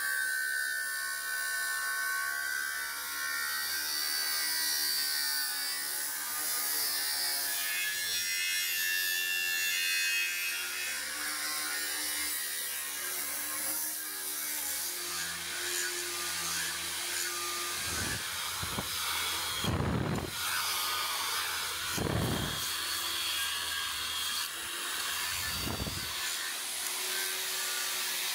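Small high-speed electric power tool running steadily with a hissing, grinding noise, its pitch wavering as it works. Several low thumps in the second half.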